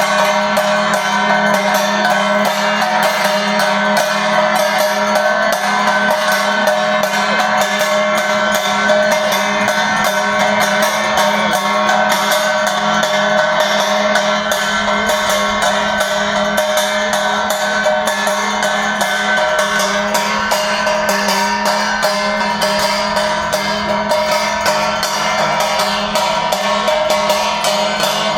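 Arati ritual music: fast, unbroken metallic percussion of bells and cymbals with drumming, over steady ringing tones.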